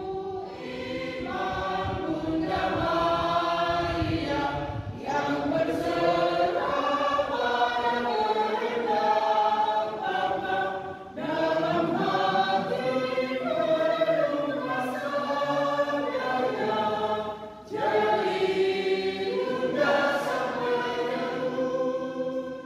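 A choir singing a slow hymn in long held phrases, with brief breaks between phrases about every six seconds.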